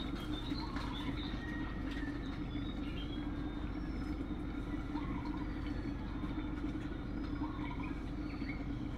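A steady low hum runs throughout, with faint scattered bird chirps and coos over it.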